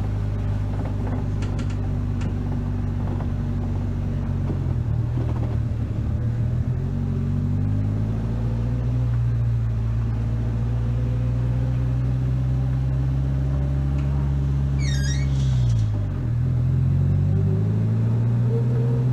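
Vehicle engine running steadily under way, picked up by a hood-mounted camera. Its pitch dips and climbs back about five seconds in, then drops sharply and recovers around sixteen seconds in.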